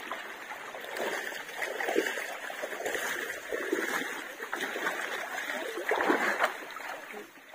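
Shallow, muddy creek water splashing and sloshing unevenly, with a few louder splashes about two, three and six seconds in.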